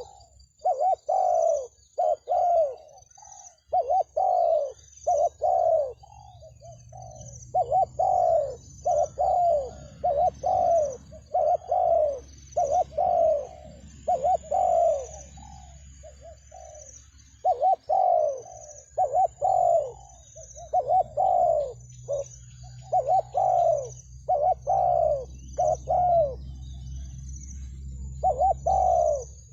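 Spotted dove cooing over and over, in phrases of two to four low coo notes with short pauses between, a faint high wavering tone behind.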